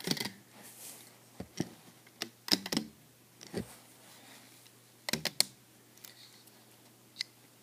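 Rubber-band bracelet being pulled up off the plastic pegs of a Rainbow Loom: irregular light clicks and taps in small clusters as the bands come off the pegs and the plastic loom is handled.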